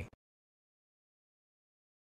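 Silence: a narrator's voice cuts off in the first instant, then the track is completely silent.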